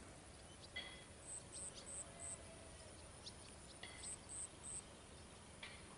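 Faint outdoor ambience with short high-pitched chirps in quick runs of three or four, twice, and a few brief sharp chirps between them.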